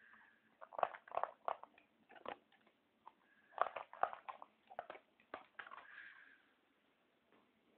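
English Springer Spaniel eating from a plastic bowl, chewing and crunching food in irregular bursts of crunches. The crunching dies away about six and a half seconds in.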